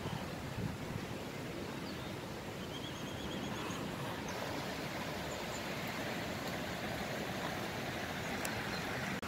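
Steady outdoor background noise, an even low rumble and hiss, with a short quick run of faint high bird chirps about three seconds in.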